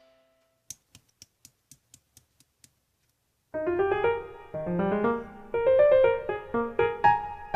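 Background music: a bright piano-like keyboard tune that starts abruptly about halfway in, after a run of faint short clicks.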